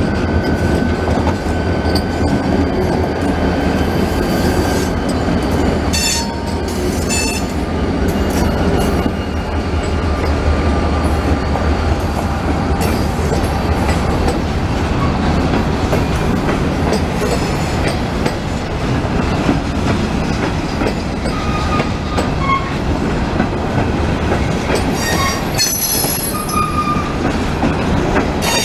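A lashup of four diesel locomotives passes close by with a steady low engine rumble. After about 13 seconds the rumble gives way to empty covered hopper cars rolling past, their wheels clacking and squealing now and then.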